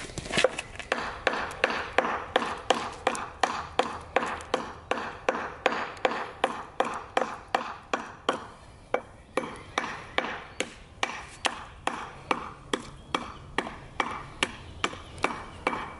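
Steel brick hammer striking the edge of a thick bluestone flagstone in a steady run of quick, sharp blows, about two to three a second, each with a short ring. The edge is being knapped, chipping small pieces off a little at a time to trim the stone to shape.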